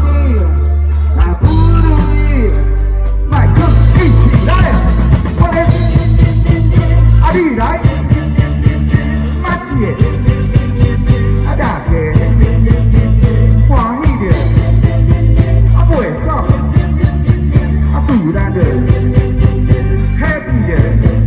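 A rock band playing live and loud: heavy bass, drums and pitched lead lines, with singing over them.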